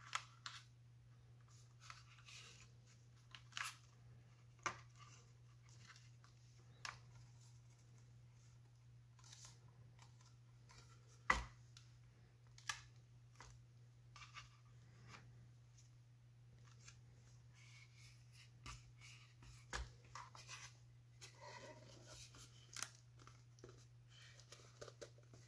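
Faint, scattered clicks and rustles of hands pressing a replacement battery onto its adhesive tape in an iPad's aluminium rear case, with one sharper click about eleven seconds in. A steady low hum runs underneath.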